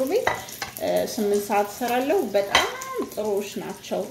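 A woman's voice talking, with two sharp clicks, the louder about two and a half seconds in.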